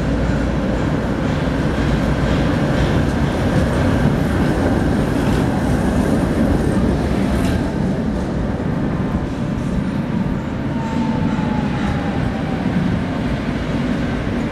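Tatra T3 tram running on street tracks: a steady rumble of wheels and motors over city street noise, with a faint falling whine about eleven seconds in.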